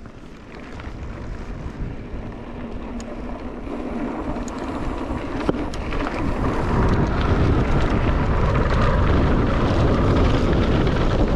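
Wind buffeting a GoPro's microphone along with the rumble of mountain bike tyres rolling over a dirt trail. It grows steadily louder over the first several seconds as the bike picks up speed, then holds, with a few sharp clicks along the way.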